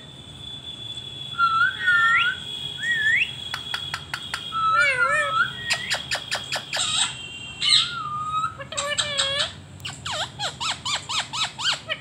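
Indian ringneck parakeet calling: short whistled calls that rise or waver in pitch, broken by runs of quick sharp clicks in the second half.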